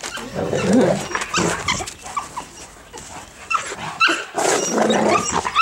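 Old English Sheepdogs playing together, making rough growling noises about half a second in and again after four seconds, with short whines and yips in between.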